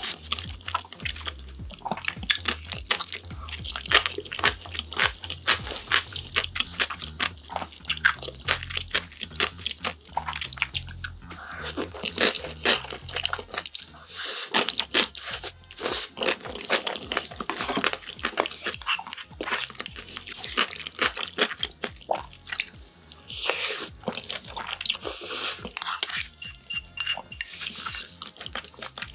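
Close-miked eating sounds: black bean noodles (jajangmyeon) slurped up with chopsticks and chewed, with a steady stream of wet mouth clicks and smacks.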